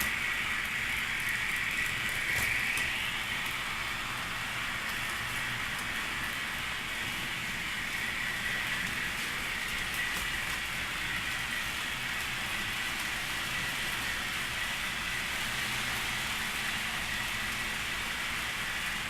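Model diesel locomotive running: a steady hiss with a thin high whine held throughout, and a few faint clicks.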